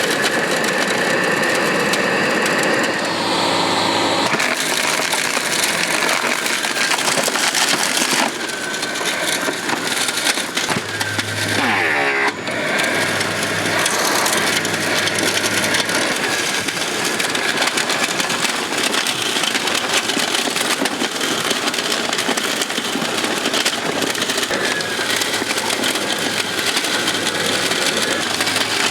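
Sanitaire vacuum cleaner's motor running loud and continuous, with a steady high whine over a rushing, rattling noise. About twelve seconds in, its pitch briefly wavers.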